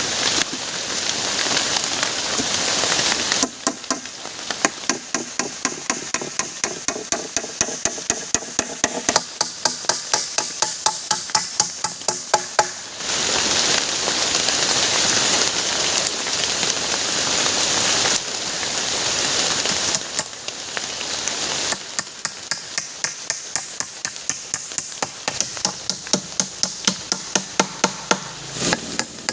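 Heavy rain falling, broken twice by long runs of quick, steady hammer blows: the first from about three seconds in, the second after a stretch of rain in the middle.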